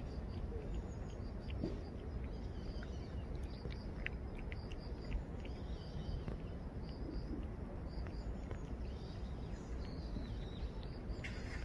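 Outdoor ambience: a steady low rumble with faint, repeated high chirping and a few soft clicks.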